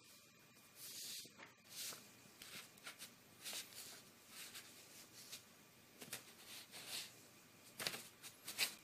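Faint, scattered paper rustles and soft taps as a cat pats and paws at loose sheets of printed paper, with a closer run of rustles near the end.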